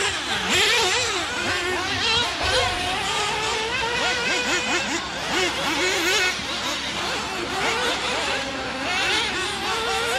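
Several small, high-revving racing engines running together as a pack of race cars laps the track. Their pitches rise and fall quickly over one another as they throttle up and lift off.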